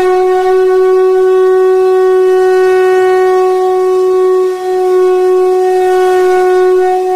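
A single long horn-like note held steady at one pitch, with a brief dip in loudness about four and a half seconds in.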